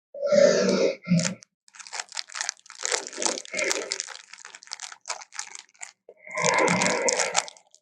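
Tyrannosaurus rex film sound effects: a short throaty burst at the start, then a run of sharp crunching and tearing like a carcass being bitten and chewed. A longer throaty burst comes near the end.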